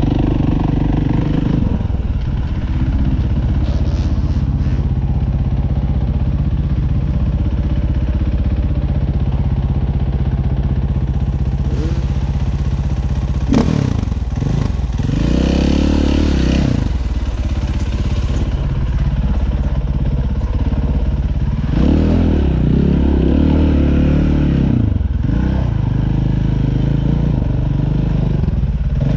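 Dirt bike engine running under way, its pitch rising and falling twice as the throttle is opened and closed. A sharp knock sounds just before the first rise.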